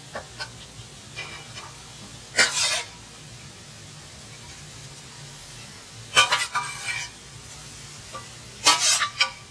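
A metal spoon scraping and clinking against a metal pot and bowl as shredded cabbage and carrots are tipped in and stirred, in short bursts every few seconds, over a faint steady sizzle of the vegetables frying.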